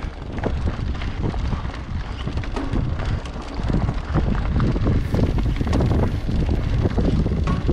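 Orbea Oiz full-suspension mountain bike descending a loose rocky trail: tyres crunching over stones and the bike rattling with many small knocks, under steady wind rush on the microphone. It grows louder about halfway through as the bike speeds up.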